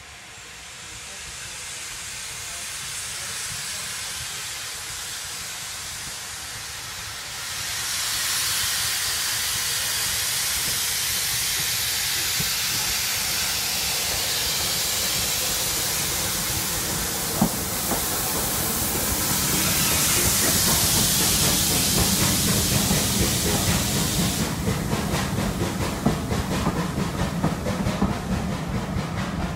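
Steam locomotive approaching and passing at a level crossing: a loud steam hiss sets in about seven seconds in and runs until nearly the end, with a deeper rumble building as the engine passes. In the last few seconds the passing coaches' wheels give a rapid clickety-clack over the rail joints.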